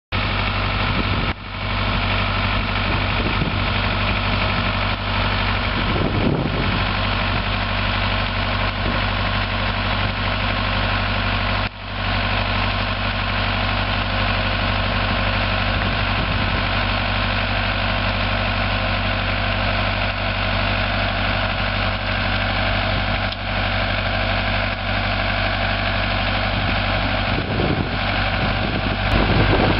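Small orchard tractor's engine running at a steady speed while it carries a fork-mounted mechanical blossom thinner down the row, with two short breaks, about a second in and near twelve seconds.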